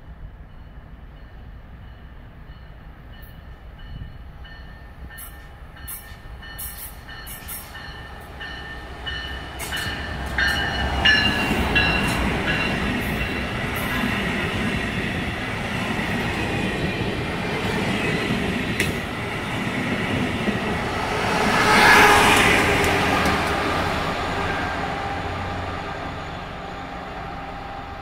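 Passenger train of Siemens Venture coaches approaching and passing close by: wheels on rail rising from a faint approach to a loud rumble, with sharp clicks from the rails early on the approach. It is loudest about three-quarters of the way through, then fades as the train moves away.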